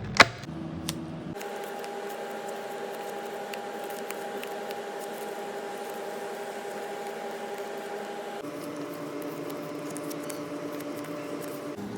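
Faint rustling and tapping from handling sticker sheets over a steady electrical room hum. A sharp click comes right at the start, and the hum changes character suddenly twice.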